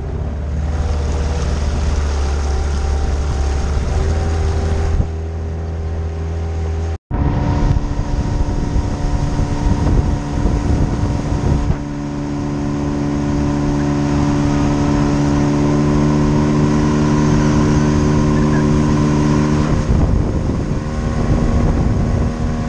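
Outboard motor of an inflatable boat running steadily under way, its tone shifting slightly a few times. It cuts out for an instant about seven seconds in.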